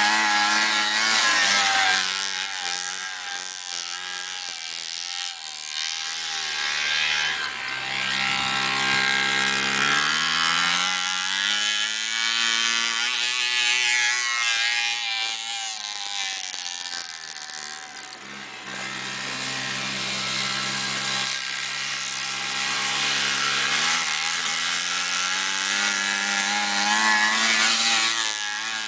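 Modified 60cc Arctic Cat Kitty Cat kids' snowmobile engine running hard, its pitch dropping twice and winding back up as the rider slows and accelerates. The clutch is going out, so it is slow to pull away.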